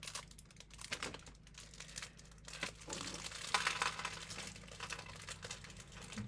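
Plastic candy wrapper crinkling and crackling irregularly as it is handled and opened, with a denser burst of crinkling a little past halfway.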